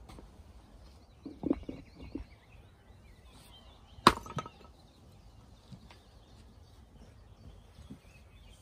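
A brick knocked down against stone about four seconds in, giving one sharp clack and a couple of smaller knocks. A few softer thuds come earlier, about a second and a half and two seconds in.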